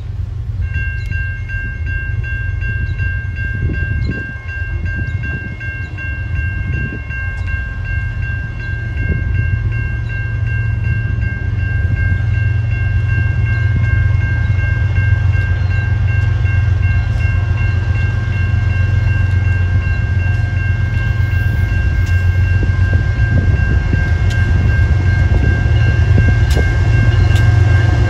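Train rumbling and growing steadily louder as it approaches, with a steady high ringing from about a second in and a few sharp ticks near the end.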